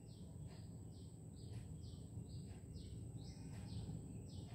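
A small bird calling over and over in short falling chirps, about two a second, faint against a low steady background rumble and a thin high steady tone.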